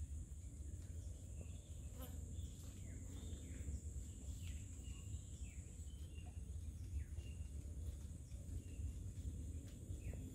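Forest swamp ambience: a steady high drone of insects with many short falling chirps of birds scattered through it, over a steady low rumble.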